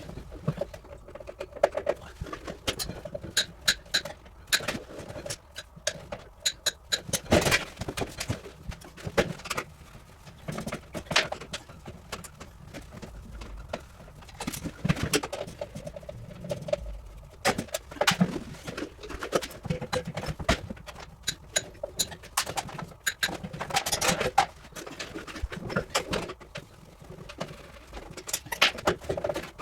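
Hand-tool work on a refrigeration unit's control box as it is dismantled: irregular clicks, knocks and light rattles, spaced unevenly.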